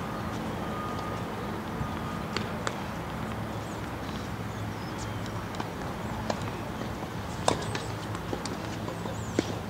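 Scattered sharp knocks of tennis balls on nearby courts, the loudest about seven and a half seconds in, over a steady low hum.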